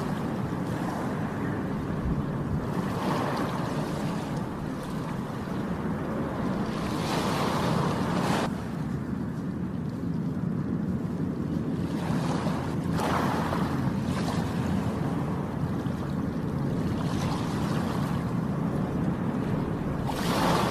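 Sea waves breaking and washing ashore over a steady low rumble of surf, with the hiss of the wash swelling every few seconds. One surge cuts off abruptly about eight seconds in.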